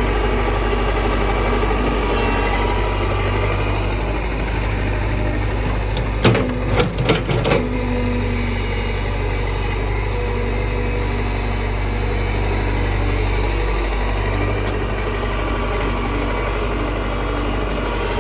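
Hitachi backhoe loader's diesel engine running steadily while it works, its note changing about four seconds in and again near the end. About six seconds in, a quick run of five or six sharp knocks.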